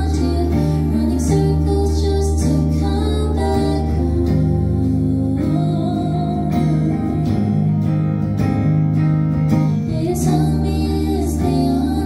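Live indie pop song: a woman singing over electric guitar, with sustained low bass notes underneath.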